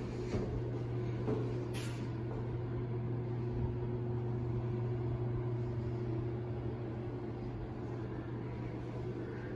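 Steady low mechanical hum with a fainter, higher steady tone above it. A brief scrape or click comes about two seconds in.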